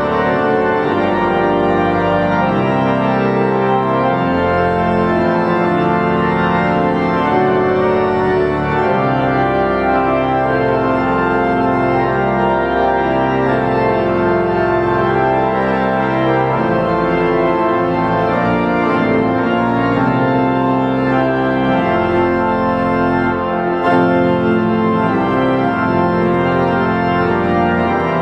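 Five-manual pipe organ playing loud, full held chords that change every second or two over a shifting bass line.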